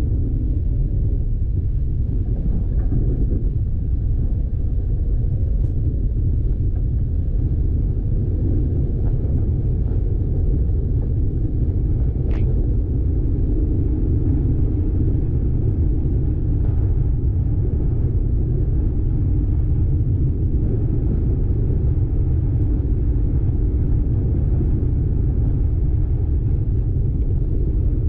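Steady low rumble of a car driving along a dirt road, engine and tyre noise running evenly without change.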